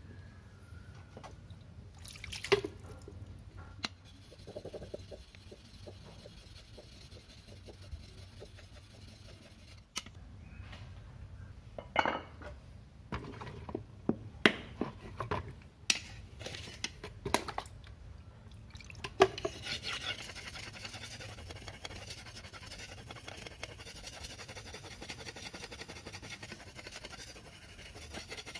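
Lathe chisel being sharpened on a wet whetstone. First come scattered clinks and knocks of steel and stone being handled. About two-thirds of the way in, a steady scraping of steel stroked back and forth over the stone begins.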